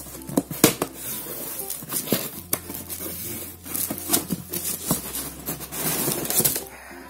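Hands opening and handling a cardboard fireworks box: cardboard flaps scraping and rustling, with many irregular sharp taps and knocks.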